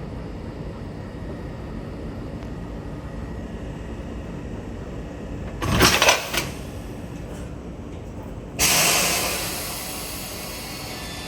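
A train standing at a station platform, its engines or ventilation giving a steady low rumble. A short cluster of clunks comes about six seconds in. A little later there is a sudden loud hiss of compressed air that fades away over a couple of seconds.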